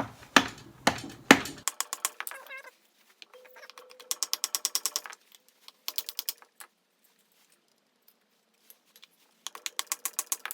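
Hand-tool work on the engine: three sharp metallic knocks, then short runs of fast, even clicking, about nine clicks a second, like a ratchet wrench spinning nuts onto the head studs to chase their threads.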